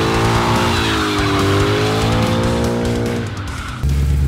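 Car tyres squealing in a burnout, with music. Near the end the squeal fades and a steady low rumble starts suddenly.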